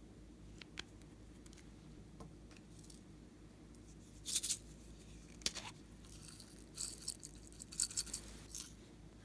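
Short, sharp crackling and clicking bursts from slime-making materials being handled, with a few faint ticks at first and then clusters of louder crackles about four seconds in and again through the second half.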